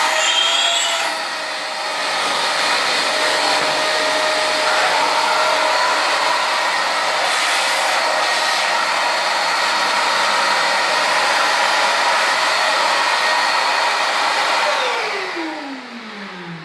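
Parkside PWD 20 A1 1300 W wet and dry vacuum cleaner running steadily, with a brief dip about a second and a half in. About fifteen seconds in it is switched off, and the motor's whine falls in pitch as it winds down.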